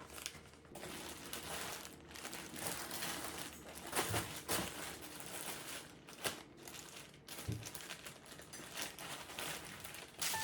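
Packaging being handled and crumpled, a continuous irregular crinkling with a few soft knocks about four seconds in and again later.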